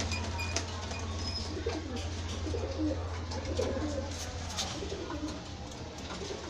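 Domestic pigeons cooing softly, over a steady low hum.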